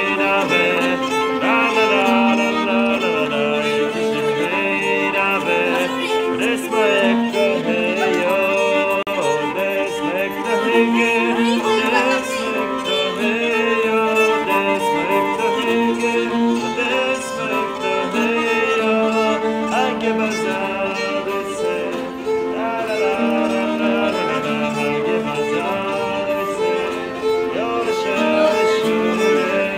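Nyckelharpa, the Swedish keyed fiddle, bowed in a folk tune, with several sustained notes sounding together throughout.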